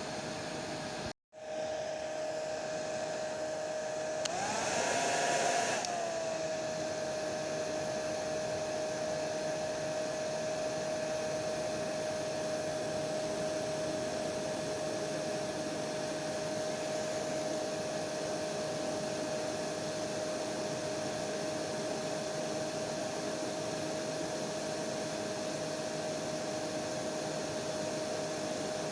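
Hair dryer running steadily, a constant whooshing with a steady whine. The sound cuts out for a split second about a second in, and around five seconds in it briefly gets louder with the whine rising slightly before settling back to the steady tone.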